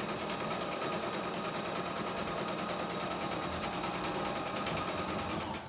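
CNY E960 embroidery and sewing machine running in sewing mode, stitching a decorative pattern stitch with a rapid, steady needle rhythm. It stops near the end.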